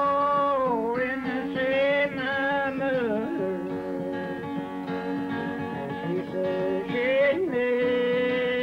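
A man singing high old-time Appalachian ballad lines to his own acoustic guitar, holding long drawn-out notes that slide down at their ends, with a slide up into a new long held note near the end.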